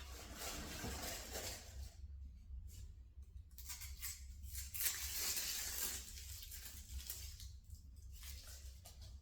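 Packaging being unpacked by hand: wrapping rustling and tearing in two stretches, one in the first two seconds and one from about four to six seconds in, over a steady low hum.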